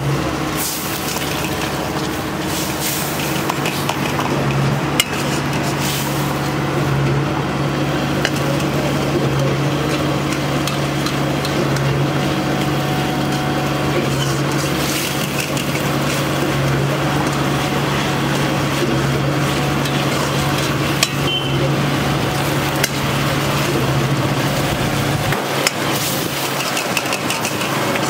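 A metal ladle stirs and scrapes sauce around an iron wok on a gas burner, with a few sharp clinks where it strikes the pan, over a steady low hum.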